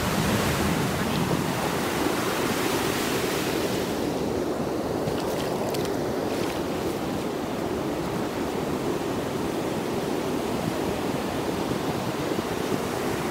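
Ocean surf breaking and washing up onto the beach, a steady rushing wash of water.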